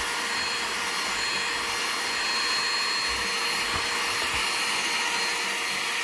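Battery-powered Clean My Bricks mini vacuum running steadily as its brush nozzle is worked over LEGO plates and studs: an even suction hiss with a thin, steady whine.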